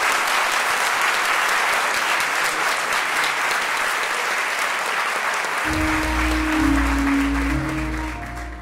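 Theatre audience applauding steadily. About six seconds in, low held music notes come in under the clapping, and both fade near the end.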